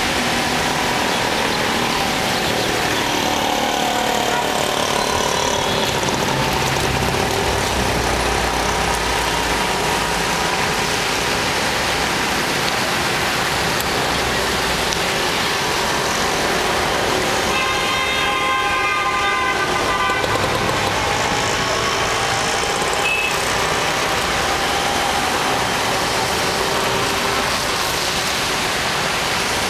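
Road traffic on a rainwater-covered street: vehicle engines passing over a steady wash of noise, with a horn honking for about two seconds a little past halfway.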